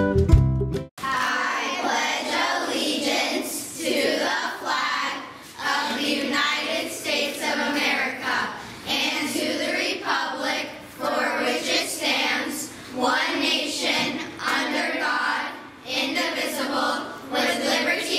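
A group of children's voices reciting the Pledge of Allegiance together, phrase by phrase, with short pauses between phrases. Just before, ukulele-like music stops abruptly about a second in.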